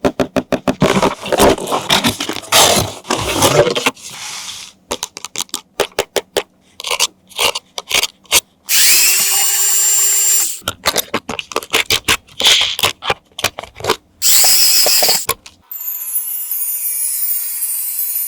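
Rapid clicks and rattles, broken by a whirring small motor that runs for about two seconds, then again briefly, with a falling high tone near the end.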